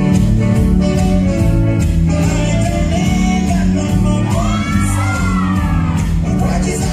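Dance music with a steady beat, heavy bass and singing. About four and a half seconds in, voices slide up and down in shouted cries for a second or two.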